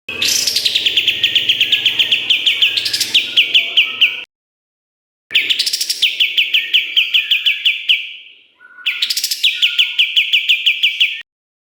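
White-shouldered triller (kapas tembak) singing: three long bouts of fast, sharp repeated notes, about eight to ten a second, each bout opening with a quick rising note, with brief silent breaks between them.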